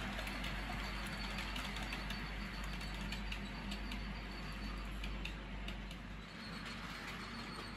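Cavalex OO gauge TEA oil tanker wagons rolling along model track, their wheels clicking irregularly over the rail joints and pointwork over a steady low hum. The clicks thin out as the train moves away.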